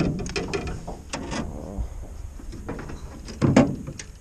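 Handling noise as fishing rods and gear are moved about in an aluminium jon boat: a run of small clicks and knocks in the first second and a half, then a louder rub as a knit sleeve brushes over the camera about three and a half seconds in.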